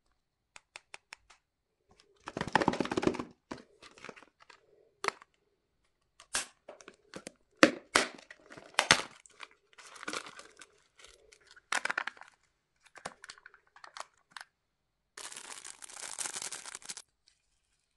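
A plastic surprise egg being opened by hand: scattered clicks and snaps of the plastic shell and bursts of tearing and crinkling plastic film. Near the end comes a longer crinkle of a small clear plastic bag being handled.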